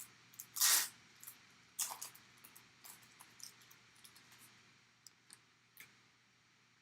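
Trading cards and their packaging being handled: scattered rustles and clicks, louder in the first two seconds, then a few faint ticks.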